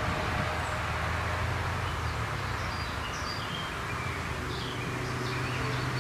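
Outdoor ambience: a steady low vehicle rumble, with small birds chirping now and then.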